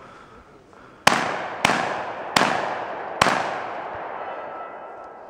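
Four shotgun shots fired in quick succession, under a second apart, each trailing off in a long echo.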